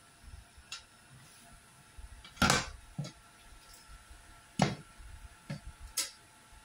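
White metal rack frame knocking against a laminated shelf board as it is handled and set down: a series of sharp knocks, the loudest about two and a half seconds in and again just past four and a half seconds.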